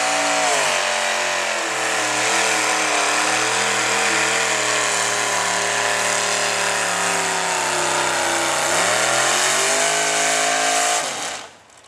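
A hot rod pulling tractor's V8 engine runs hard under load as it drags the weight sled. The engine note sags about half a second in, holds steady, climbs again near the end, then cuts off abruptly.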